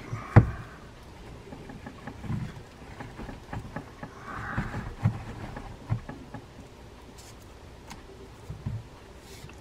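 Handling noise from servicing a lever drag fishing reel on a wooden workbench: scattered knocks and clicks of the reel and a screwdriver as the reel's screw-on handle is taken off. A sharp knock about half a second in is the loudest, and there is a brief rustle near the middle.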